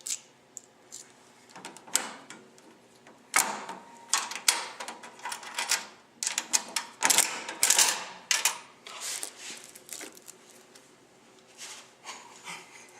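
Coin-operated capsule vending machine being worked: a run of sharp clicks and clatters from the coins and the dispensing mechanism, thickest through the middle and fewer near the end.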